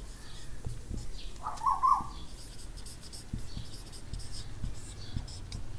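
Felt-tip marker writing on a whiteboard: faint scratching strokes and light taps, with a brief squeak about one and a half seconds in.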